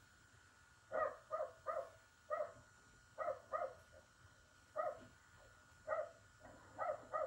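A dog barking, about ten short barks at uneven intervals, from a film soundtrack played through a TV's speakers.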